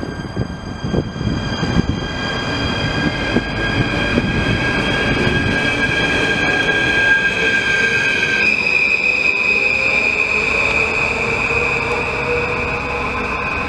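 NS Sprinter electric multiple unit pulling away along the platform. Its wheels clatter over the track in the first few seconds, under a steady high electric whine that jumps up in pitch about eight seconds in.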